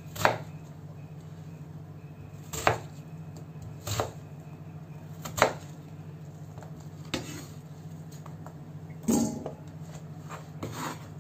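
Kitchen knife chopping white radish (daikon) into cubes on a wooden cutting board: single crisp knocks of the blade through the radish onto the board, about seven in all, spaced a second or two apart and unevenly.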